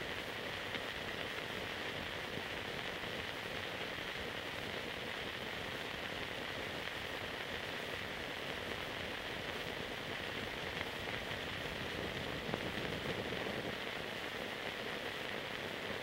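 Steady hiss and crackle of an old film soundtrack transfer, with no distinct sound events.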